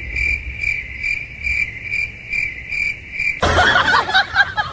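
Cricket chirping, a high trill pulsing about three times a second on one pitch, cutting off abruptly about three and a half seconds in as louder mixed noise takes over.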